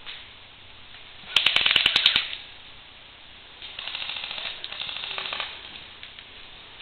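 Airsoft guns firing on full auto: a loud rapid burst of about ten sharp clicking shots in under a second, then a quieter, longer rattle of fire lasting about two seconds.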